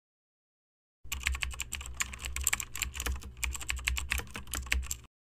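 Typing sound effect: a rapid run of key clicks that starts about a second in and stops suddenly near the end, over a low hum.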